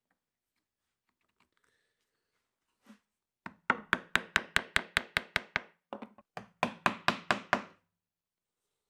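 Wooden joiner's mallet tapping a wood-handled bench chisel in two runs of quick light strikes, about six a second, starting about three and a half seconds in with a short pause just before six seconds. The chisel is chopping along the marked baseline of hand-cut dovetails.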